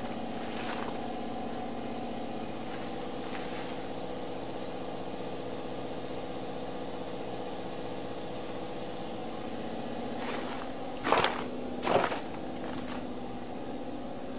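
Pallet conveyor line running with a steady, multi-toned motor hum. Two loud sharp knocks come near the end, about a second apart, with a few fainter knocks earlier.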